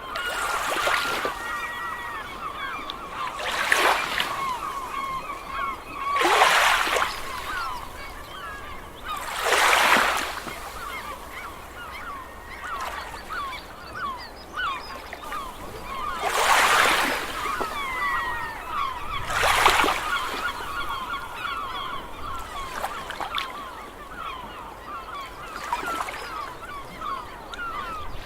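A large flock of gulls calling over and over, many overlapping cries, with waves washing in as swells of rushing noise about every three to six seconds.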